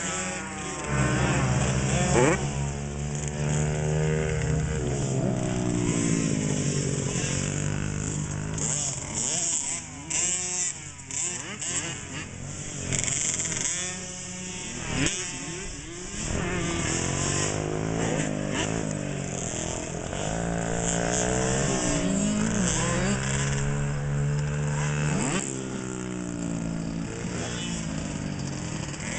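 Several small 50cc two-stroke motocross bikes, KTM 50s among them, racing around a dirt track. Their engines rev up and down over and over as the riders throttle through the turns and jumps, with more than one bike heard at once.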